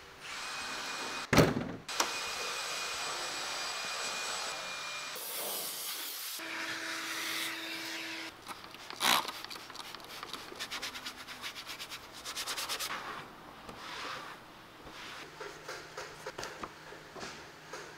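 A vacuum cleaner hose runs with a steady whine for several seconds, then a microfiber cloth is rubbed over plastic engine-bay trim in quick strokes, with two sharp knocks along the way.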